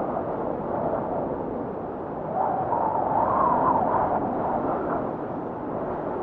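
Steady wind noise that swells into a louder, slightly higher gust from about two seconds in, easing off again after about four and a half seconds.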